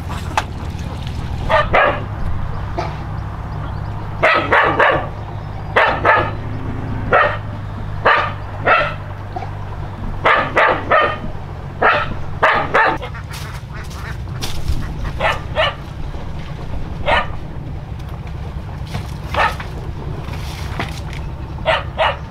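A dog barking repeatedly, single barks and quick runs of two or three, fainter in the second half, over a steady low hum.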